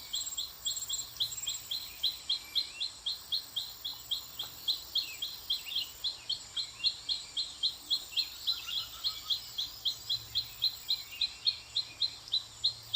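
A bird calling a short, high chirp over and over, at a steady pace of about four chirps a second.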